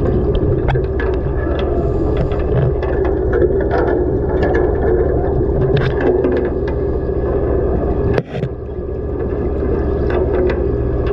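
Underwater sound picked up through a camera's waterproof housing: a steady low hum of the dive boat's machinery carried through the water, with scattered clicks and crackles. The level drops suddenly and briefly about eight seconds in.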